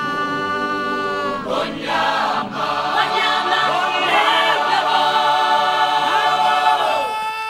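A choir chanting and singing a cappella under one long note held by a solo voice; the choir comes in about a second and a half in and drops out near the end, leaving the held note.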